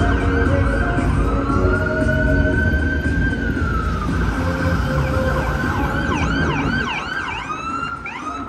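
Emergency vehicle siren in street traffic. It starts as a slow rising-and-falling wail, then switches about five seconds in to a fast yelp of quick up-and-down sweeps, over a low rumble of traffic.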